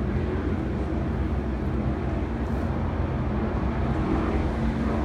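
Steady drone of racing powerboat engines out on the water, running together without a clear rise or fall.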